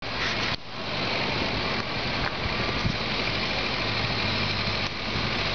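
Ford Bronco's engine running at low revs as it crawls along a muddy track, steady, with a dense hiss over it.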